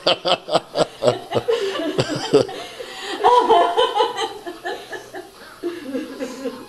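A girl's laughter, overcome with emotion, in quick rhythmic bursts of about three or four a second, then longer wavering laughing sounds behind her hands.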